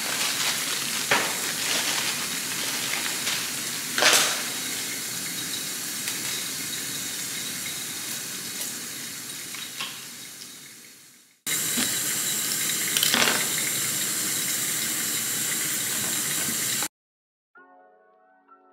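Kitchen tap running into a sink while raw chicken is rinsed, with a few sharp knocks of a pot against the sink. The water fades out about two thirds of the way through, starts again at once and cuts off abruptly near the end, giving way to faint music.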